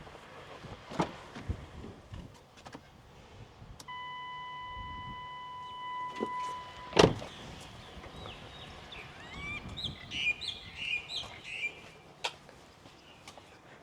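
Clicks and knocks of a car door and controls. A steady electronic warning tone sounds for about three seconds and stops with a loud thump, the loudest sound here. A few birds chirp briefly after it.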